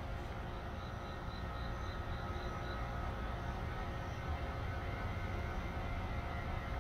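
Steady outdoor background rumble with a faint steady hum, and a short run of faint high chirps, about four a second, early on.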